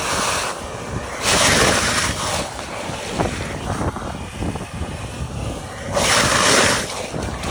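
Septic vacuum truck running steadily while its suction hose pulls sewage out of a septic tank, with two loud hissing rushes, one about a second in and one near the end.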